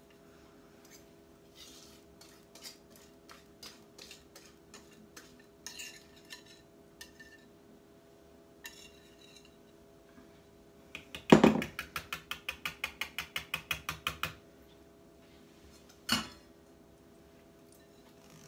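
Wire whisk and utensils clinking against glass and ceramic mixing bowls while cake batter is scraped out: scattered light clicks, then about halfway through a quick run of about seven taps a second for some three seconds, and one more knock near the end.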